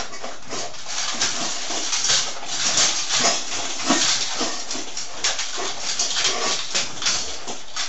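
Two dogs, an English cocker spaniel and a border collie, eating from metal bowls: irregular chewing and crunching with clicks and clatters against the bowls.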